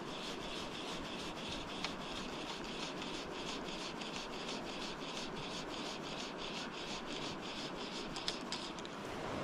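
River water running steadily, with a fast, evenly spaced high ticking or rasping over it.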